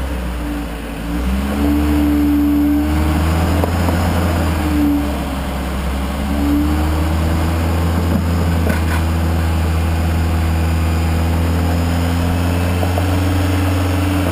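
Rock crawler's engine revving up and down in spurts over a steady low drone as the vehicle works its way up a steep granite ledge.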